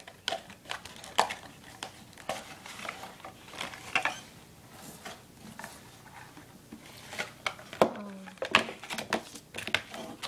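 A small product box being opened and its packaging handled: scattered light clicks, taps and rustles, busier near the end.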